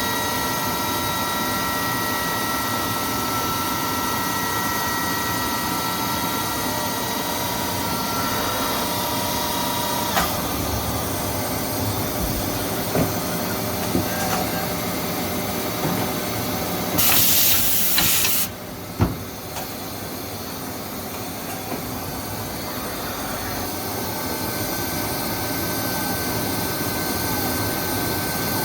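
Mazak Integrex 100-IISY CNC turning and milling center running a milling cycle, its tool spindle giving a steady multi-tone whine that changes about ten seconds in. A loud hiss lasts about a second and a half near the middle, then a click, and the machine runs quieter before a new whine sets in near the end.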